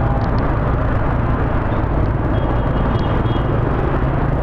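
Steady engine and road noise of a motorbike riding through dense scooter traffic, heard from on board, with a faint high tone briefly around the middle.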